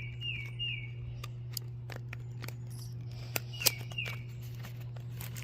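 Small plastic toy pieces clicking and tapping as they are handled, over a low steady hum. Five short, high, falling chirps come in quick succession, three at the start and two more a little past the middle.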